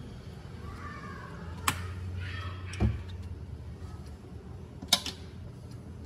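Two sharp clicks and a dull knock, a couple of seconds apart, over a low steady hum and faint voices.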